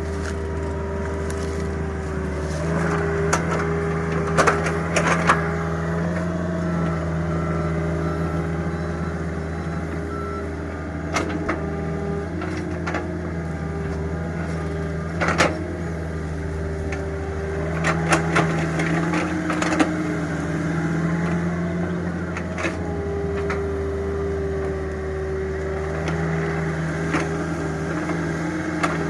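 Mini excavator's diesel engine running steadily, its note stepping up and down every few seconds as the hydraulics take load, with sharp knocks and cracks here and there.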